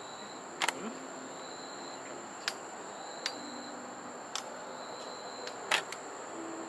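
Fireworks bursting at a distance: about five sharp bangs at uneven intervals, the loudest one near the end, over a steady high-pitched insect trill.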